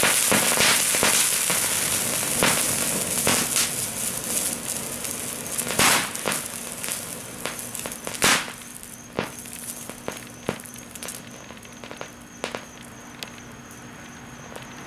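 Antimony sulfide sandfire burning down: a dense hissing, crackling spray of sparks that fades steadily. It is broken by sharp pops, the loudest about six and eight seconds in, and by scattered single crackles as it dies down.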